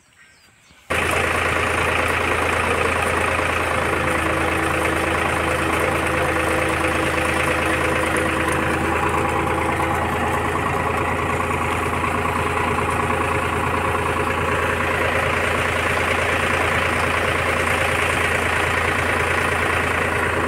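Tractor diesel engine running steadily, driving a belt-driven generator mounted on its rear. The sound starts abruptly about a second in.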